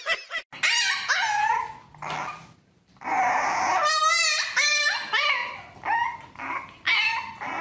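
Dogs whining and yelping: high cries that glide up and down in pitch about a second in, then after a brief pause a puppy giving a quick, loud series of high whines and yelps.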